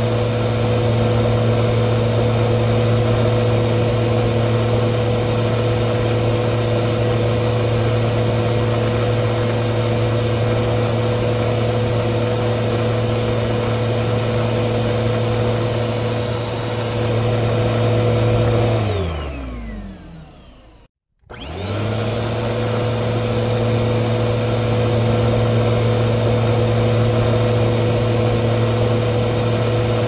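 Vacuum cleaner running at a steady pitch, a whine over rushing air. About two-thirds of the way through its motor winds down, its pitch falling over a couple of seconds to a brief silence. It then starts up again, rising quickly back to full speed.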